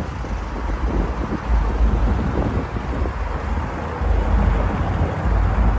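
Car engine running with a deep rumble that swells twice, mixed with wind buffeting the microphone.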